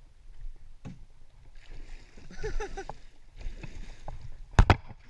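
A hooked musky thrashing and splashing at the water's surface close to the bank, in irregular bursts, with two sharp knocks close together near the end.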